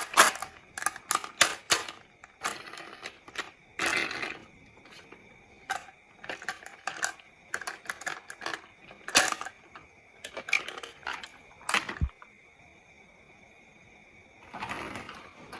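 Marbles clicking and clattering down a wooden marble run: many sharp, irregular clicks with a few short rolling rattles, going quiet for a couple of seconds near the end before one more rattle.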